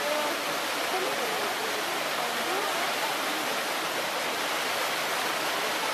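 Steady rush of running water in a polar bear pool, with faint voices of onlookers behind it.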